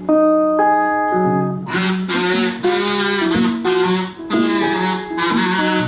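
Acoustic guitar strummed under a harmonica played in a neck rack, an instrumental break in a folk song. A little under two seconds in the harmonica comes in brighter and louder.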